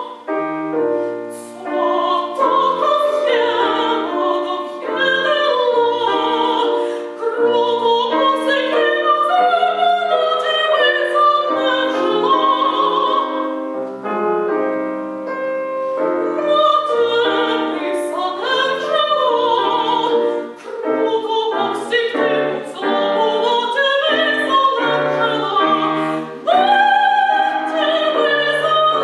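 Soprano singing an opera aria with piano accompaniment, the voice wavering with vibrato on held notes over the piano's chords and bass notes.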